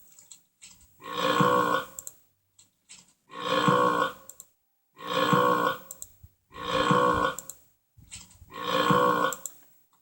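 A big, drawn-out burp repeated five times. Each burp lasts about a second, and they sound almost identical, like the same burp sound played over and over.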